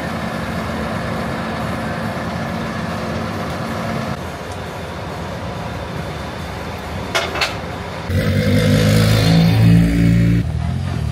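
Vehicle engines running: a steady engine drone for the first few seconds, then from about eight seconds in a louder, lumpy-idling performance car engine close by. Two sharp clicks come shortly before the loud engine starts.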